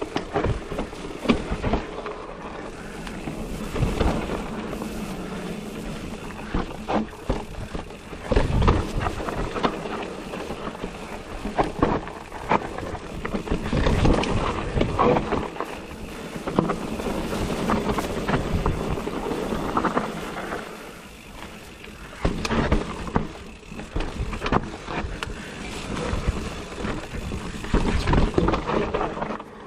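2020 Giant Reign E electric mountain bike ridden over a rough trail: steady tyre noise with frequent irregular knocks and rattles from the bike.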